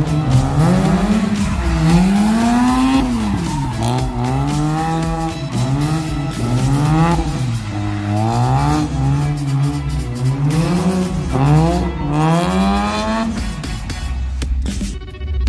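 Mazda RX-7 FC's 13B rotary engine revving up and dropping back over and over, about once a second, as the car drifts through a tight cone course, with tyres squealing on the wet pavement.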